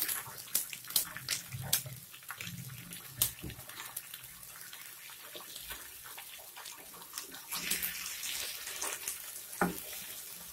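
Eggs and masala frying gently on a tawa with a light sizzle. A spatula scrapes and clicks against the tawa as the yolks are broken and spread, with a sharp tap near the end.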